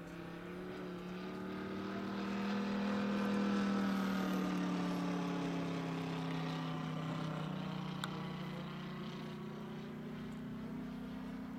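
Moki 180 radial engine of a quarter-scale RC Yak-11 warbird droning in flight. It swells to its loudest about three seconds in, then slowly fades with a slight shift in pitch as the plane passes and moves away. A single short click comes about eight seconds in.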